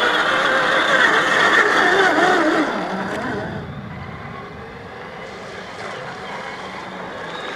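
Whine of a 1/10-scale RC crawler's brushed 540 electric motor and gears, its pitch wavering with the throttle. It winds down about three seconds in and drops to a quieter whir.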